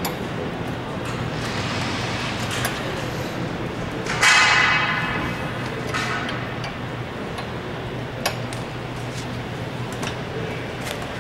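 Hand metalwork at a steel bench vise: light metallic clicks and taps as a wrench turns the bolt of a lightening-hole flanging die. About four seconds in, a loud metal clang rings on for about a second. A steady low hum runs underneath.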